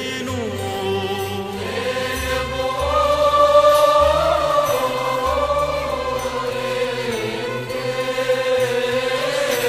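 Choir chanting a slow church hymn in long held notes that glide gently up and down, swelling about a third of the way in.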